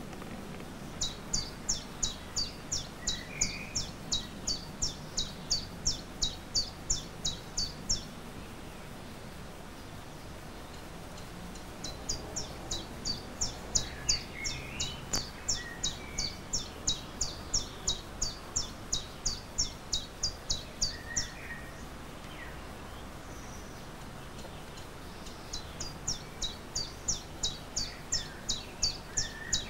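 A small bird singing long runs of high, quickly repeated chirps, about three or four a second, in three bouts of several seconds with pauses between; other birds call faintly now and then.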